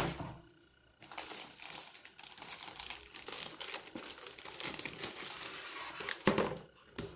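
Keyboard packaging crinkling and rustling continuously for about five seconds as it is handled and pulled off, with a sharper knock near the end.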